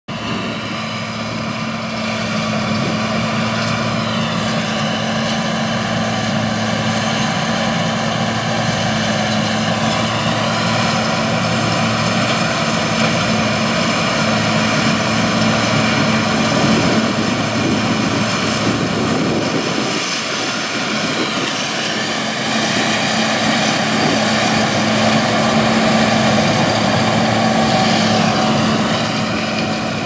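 John Deere 7720 Turbo combine harvesting soybeans: its turbocharged six-cylinder diesel running under load together with the threshing and separating machinery, a steady droning whine whose pitch slides briefly a few times.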